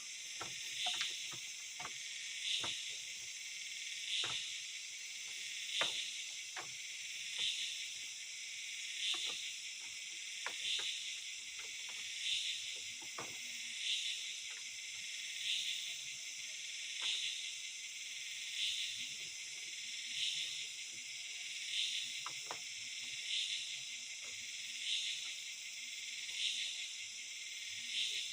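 Forest insect chorus: a steady, high, shrill drone with a louder pulse repeating about every second and a half. Scattered light clicks and knocks sound over it, more of them in the first half.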